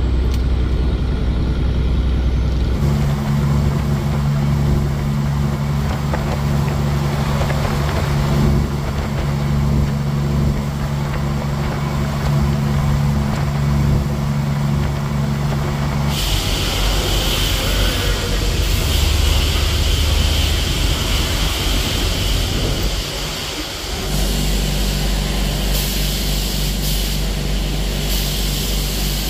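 Semi truck's diesel engine running steadily, its note shifting a few seconds in. About halfway through, a steady hiss joins it.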